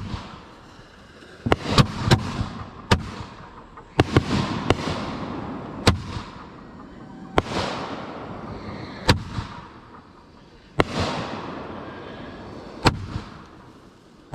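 Consumer aerial firework shells going off: a dozen or so sharp bangs at irregular gaps of one to two seconds, each followed by a fading crackling hiss.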